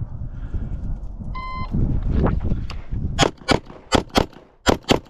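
A short electronic shot-timer beep, then, about two seconds later, a Glock 17 Gen 4 9mm pistol firing six shots in three quick pairs.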